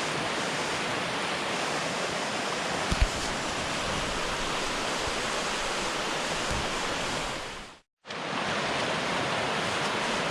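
River water rushing steadily. There is a single low thump about three seconds in. The sound cuts out for a moment just before eight seconds and then comes back.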